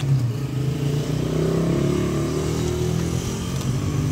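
Engine of a motor vehicle running steadily, briefly rising and falling in pitch near the middle.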